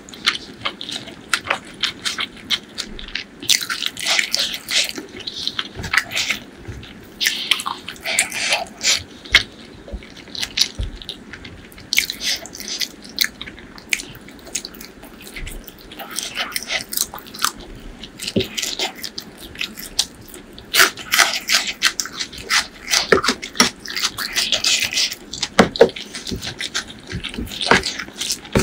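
Close-miked eating sounds: biting and chewing chicken liver and gizzard curry with rice, with many short mouth clicks and crackles throughout.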